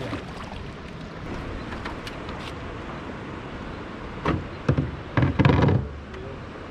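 Steady rush of water and wind, with a loud knock a little past four seconds in and a short cluster of heavy thuds about a second later.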